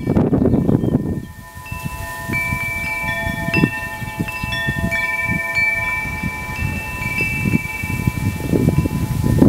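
Wind buffeting a DSLR's bare on-camera microphone with no windscreen, an uneven low rumble in gusts, heaviest in the first second and again near the end. Wind chimes ring over it from about a second and a half in, several notes struck one after another.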